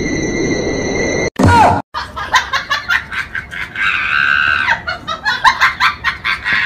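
High-pitched screaming voice in rapid, choppy bursts, with one longer held cry about four seconds in, after a short loud burst near the start.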